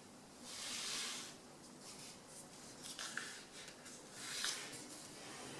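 Quiet rustling and scraping of a sheet of printer paper as a corner is folded to the middle and pressed flat, in three soft swishes about a second, three seconds and four and a half seconds in.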